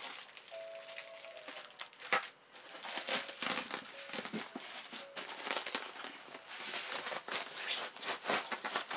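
Plastic packaging wrap crinkling and rustling in irregular crackles as it is handled and pulled apart.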